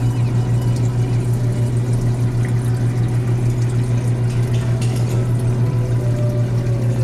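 Aquarium pump running with a strong steady low hum that pulses quickly and evenly, over a hiss of moving, bubbling water.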